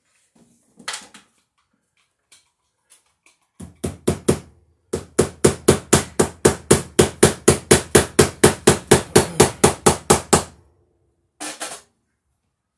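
Hammer tapping a staple into a wooden beam overhead to fasten electrical cable: a few blows, then a steady run of about four taps a second for some five seconds.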